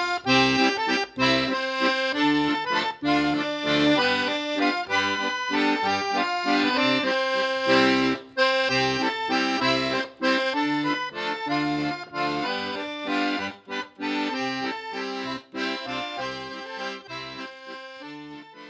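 Music with a quick, steady rhythm of short notes, fading out near the end.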